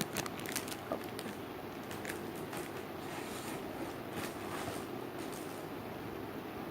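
Faint rustling and soft handling noises as a peach-shaped foam squishy is squeezed gently, a few small crackles mostly in the first second, over a steady room hum.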